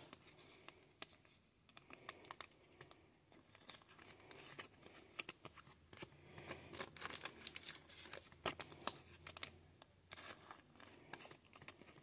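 Faint crinkling and scattered light clicks of trading cards and a clear plastic card sleeve being handled.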